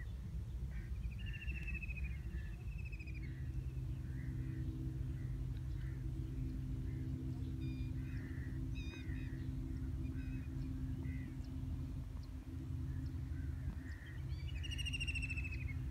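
Open-field ambience: a steady low rumble with a low hum that sets in about three seconds in, and scattered bird calls over it. A drawn-out falling call is heard near the start and again near the end.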